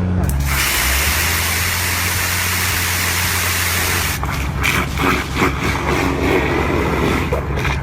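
Diesel engine of heavy machinery running with a steady low drone. About half a second in, a loud hiss joins it and turns rough and uneven after about four seconds.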